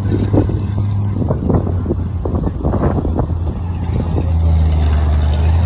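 Monster truck engine running at low speed as the truck climbs over sand dunes, a steady low rumble. About four seconds in its note drops and it grows louder as the truck comes closer.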